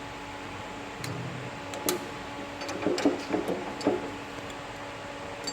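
Sharp clicks and short metallic clinks as a circlip and bracket are fitted by hand onto a two-post lift's hydraulic cylinder, bunched about one to four seconds in, over a steady low hum.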